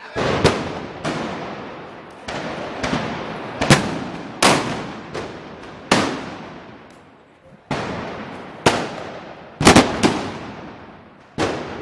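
A run of loud gunpowder bangs, about a dozen at irregular spacing, some in quick pairs, each with a long echoing tail.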